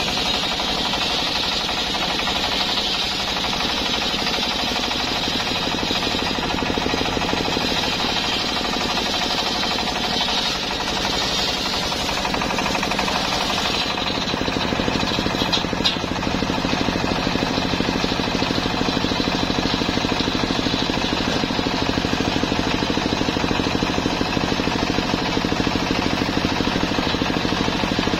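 Engine-driven circular sawmill blade ripping through a teak log, a steady high-pitched cutting sound over the engine's fast, even pulse. About halfway through the cut ends and the blade runs free, the engine sound now to the fore.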